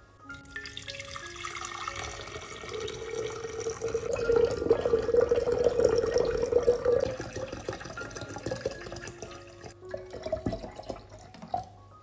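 Water poured in a steady stream into a glass jug onto tomato paste, splashing and bubbling as the jug fills; the pour is loudest midway, stops about ten seconds in, and is followed by a few drips.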